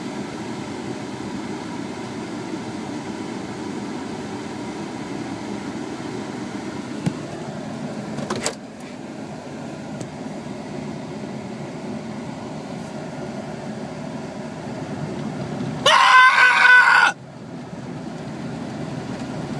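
Steady rushing wash noise heard from inside a car going through an automatic car wash, with a knock about halfway through. Near the end a man screams at the top of his lungs for about a second, the loudest sound.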